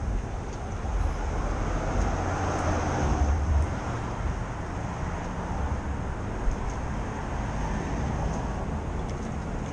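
Street traffic noise with a low rumble, swelling as a vehicle passes about two to three seconds in, then settling to a steady background hum.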